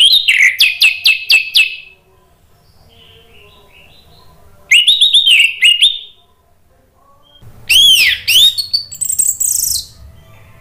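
Orange-headed thrush singing loud, clear whistled phrases. It opens with a rapid run of downward-sweeping notes, sings another phrase about five seconds in, and a louder phrase of arched notes around eight seconds, with soft twittering between them.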